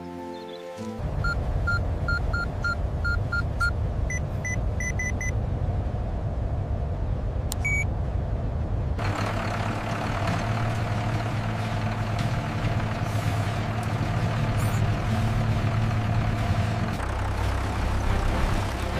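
Tractor engine running steadily, with a quick run of short high electronic beeps in the first few seconds. About halfway through, a broader rushing noise with a steady hum joins it.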